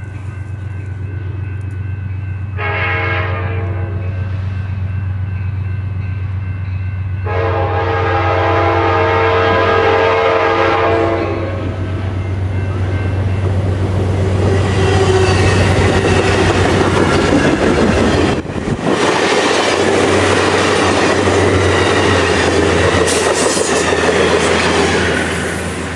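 Amtrak California passenger train sounding a several-note horn as it approaches: a short blast about 3 s in, then a long one about 7 s in. The train then passes close by, with loud wheel-on-rail noise and the clickety-clack of its bi-level cars, fading near the end.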